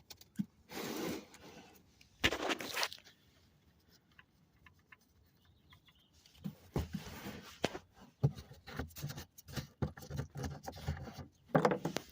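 Handling noise under a minivan during an oil change: two short scrapes near the start, then after a quiet pause a run of irregular metallic clicks and knocks, typical of a drain pan being positioned and a wrench working on the oil drain plug.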